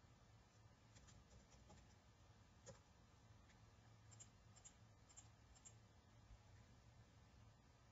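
Near silence with a few faint, scattered clicks of computer keyboard keys and a mouse.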